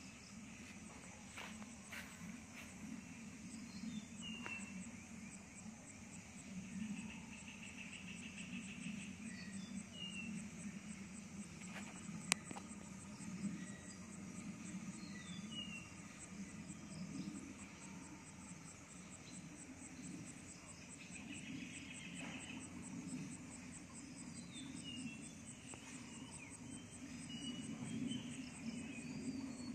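Insects chirring steadily with a fast, even pulse, while birds give short falling chirps every few seconds, over a low steady rumble. A single sharp click about 12 seconds in.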